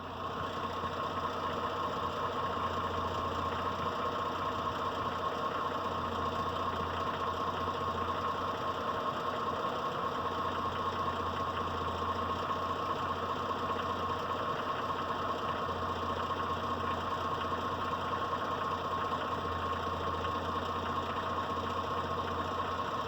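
Mitsubishi Pajero IV's 6G72 V6 petrol engine idling steadily with a knock that sounds like diesel clatter. The cause of the knock is not identified.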